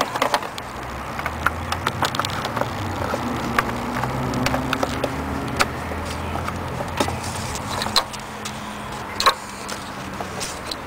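Scattered sharp clicks and taps of plastic connectors, bulb sockets and wiring being handled and fitted behind a headlight, over a steady low background hum.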